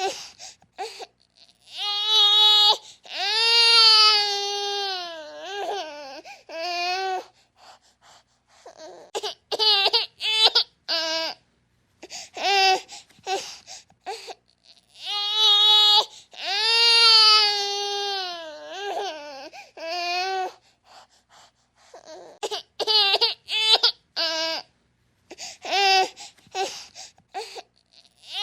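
A baby crying: two long wails of several seconds whose pitch slides down at the end, with runs of short, choppy cries between them.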